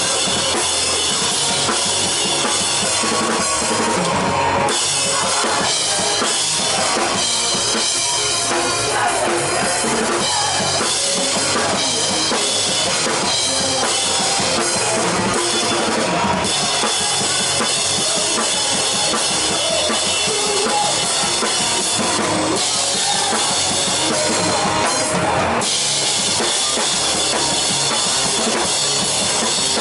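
Drum kit played live in a rock song: kick and snare hits under a steady wash of ringing cymbals. The cymbal wash drops away for short stretches a few times.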